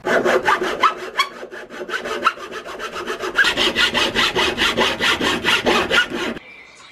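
A hand hacksaw cutting through a thin wooden batten, back-and-forth strokes at about four a second, stopping abruptly near the end.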